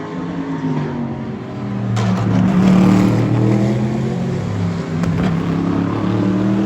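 Racing car engine under hard acceleration as it passes, its pitch climbing through the revs and dropping briefly at a gear change about five seconds in. It is loudest two to three seconds in.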